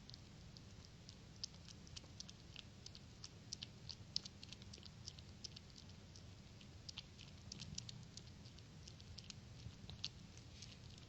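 Faint, irregular small clicks and ticks, several a second, over a low steady hum; no meowing.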